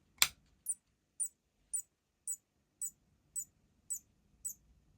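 A click as the Focusrite Scarlett 18i20 is switched on, then its switch-mode power supply ticking evenly about twice a second: the supply keeps restarting and cutting out in protection, the switching-noise fault.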